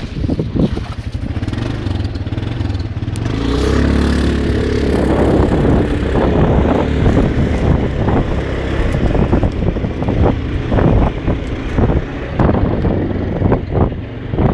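ATV engine running under load, revving up about four seconds in and staying loud, with rattling and clattering throughout.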